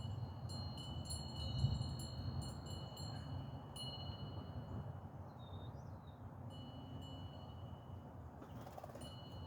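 Wind chimes ringing: high clear tones struck again and again, falling silent for a couple of seconds in the middle and ringing again near the end, over a low steady rumble.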